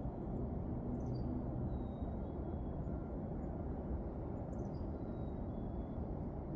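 Steady low rumble of distant city traffic, with faint high bird calls over it: a few short whistled notes and two quick downward chirps, about a second in and again about four and a half seconds in.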